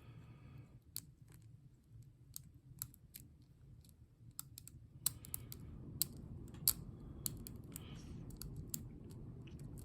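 Lock pick and tension wrench working the pins of a Ruko ASSA Abloy 2 pin-tumbler lock cylinder: irregular sharp metallic clicks, coming thicker from about five seconds in, over a low rumble.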